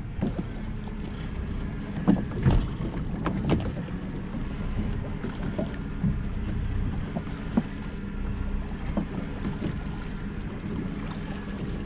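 Yamaha 90 hp four-stroke outboard running steadily, with water washing along the hull. A few short knocks come through a couple of seconds in.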